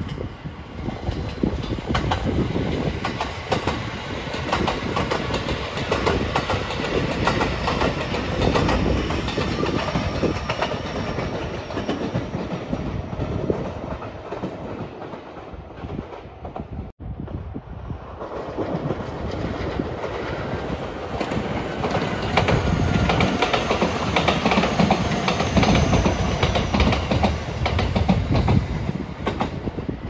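JR Marine Liner rapid electric train passing close by, its wheels clattering over the rails. The sound cuts off suddenly a little past halfway, then a second Marine Liner train approaches and passes, getting louder near the end.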